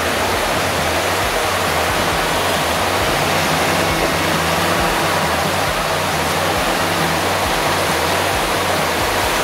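Steady rushing of a fast mountain stream running full with snowmelt, with a low engine rumble of off-road 4x4s crawling through snow underneath.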